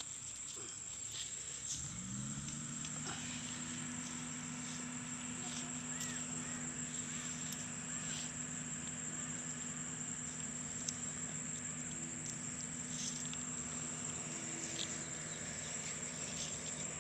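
Steady high-pitched chirring of insects, likely crickets, in grass. About two seconds in, a low steady hum like a distant engine starts with a short rise in pitch and then holds. Scattered soft clicks and rustles come from handling the mesh net bag.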